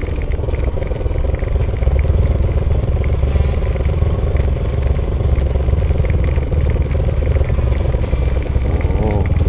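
Motorcycle engine running at low speed on a rough dirt trail, with rattling and clattering as the bike goes over bumps.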